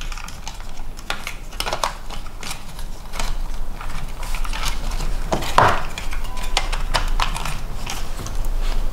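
Hands working a small plastic RC car: irregular light plastic clicks and taps as a part is pressed into place behind the seat and the car is picked up, with one louder knock about five and a half seconds in.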